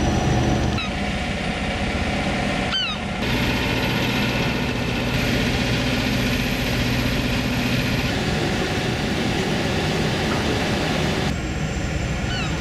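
Marine diesel engines of a harbour tug running with a steady low drone while manoeuvring a barge, with short high chirps about three seconds in and again near the end.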